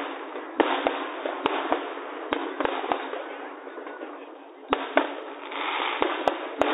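Aerial firework shells bursting: an irregular series of sharp bangs, sometimes two or three in quick succession, with a brief lull midway.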